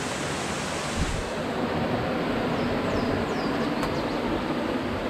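Steady rushing of a stream's flowing water, with a low bump about a second in and a few faint high chirps around the middle.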